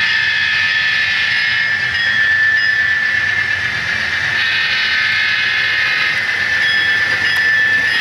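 HO-scale Kato GE AC4400CW model locomotive's DCC sound decoder playing diesel engine sound through its small speaker, with a steady high whine. A brighter hiss swells and fades a few times over the running of the train.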